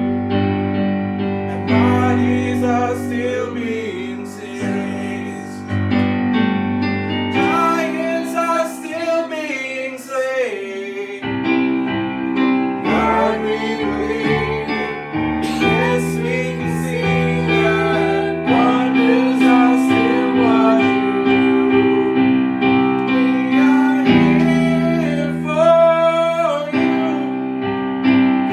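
Worship song: sustained keyboard chords that change every few seconds, under a singing voice carrying the melody.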